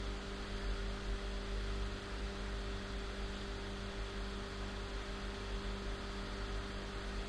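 Steady electrical hum with a faint hiss underneath: the recording's background noise, with nothing else sounding.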